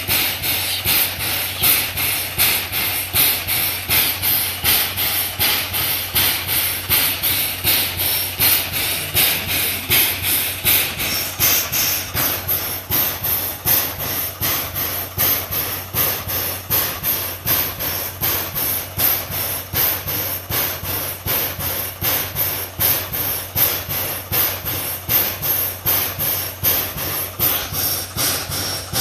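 Steam locomotive C11 207 standing at the platform, its air pump panting in a steady rhythm of about two to three hissing beats a second over a constant low hum.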